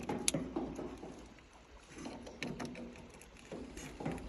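Faint scattered clicks and light knocks over low background noise, the sharpest click just after the start; no engine running or cranking.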